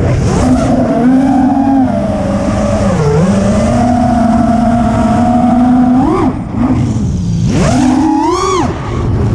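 A 6s FPV freestyle quadcopter's brushless motors and Gemfan 51433 propellers whining. The whine holds a steady pitch, dips briefly about three seconds in, then climbs sharply twice near the end as the throttle is punched.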